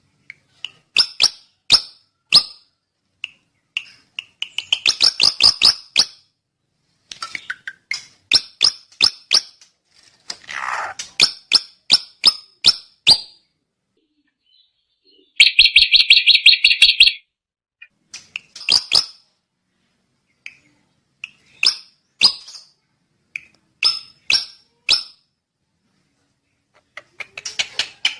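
Drongo calling: bursts of quick, sharp chips and clicks separated by short pauses, with a fast harsh rattle a little past halfway.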